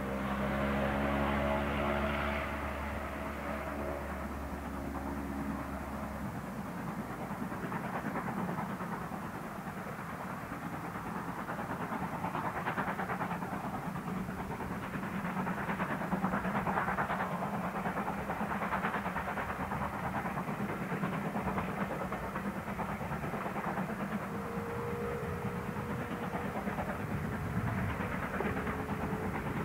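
BR Standard Class 4MT 2-6-0 steam locomotive No. 76017 hauling a train of coaches: its rhythmic exhaust beats mixed with the running of the coaches on the track. A steady low drone sounds over the first six seconds and cuts off suddenly.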